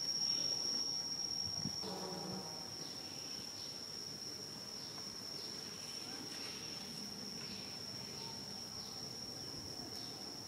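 Insects droning in one steady high-pitched tone, with faint short chirps scattered through it. A brief low call is heard about two seconds in.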